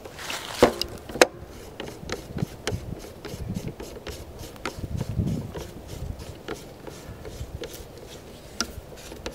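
Hands threading the barrel nut of a Henry U.S. Survival Rifle (AR-7) onto the receiver to join the barrel: rubbing and scraping of the parts with many small clicks.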